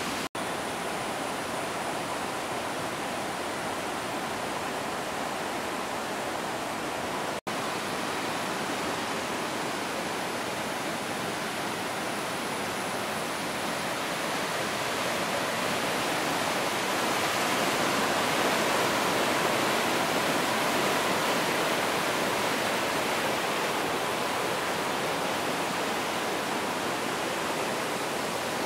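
A swollen, monsoon-flooded river rushing over rapids: a steady, full roar of churning water that swells a little midway. Two brief dropouts break it, near the start and about seven seconds in.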